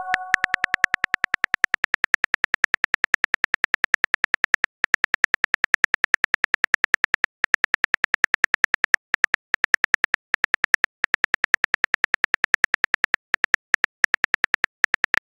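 Rapid, evenly spaced keyboard clicks from a texting-story app's typing sound effect, one per letter as a message is typed out, with a few brief pauses. At the very start the tail of a message-sent chime fades out.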